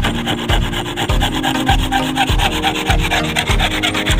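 Small hand saw, cut down from a broken logging-saw blade, sawing back and forth through a clamped piece of wood with a steady rasp; its teeth are not yet set.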